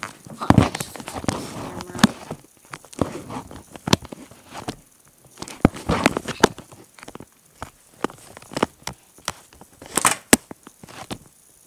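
Handling noise from a tablet being picked up and set back in place: irregular knocks, taps and rustling scrapes against its microphone.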